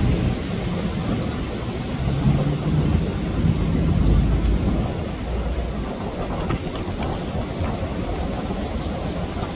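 Steady low rumble of passing vehicle traffic, with an engine hum that swells between about two and four seconds in.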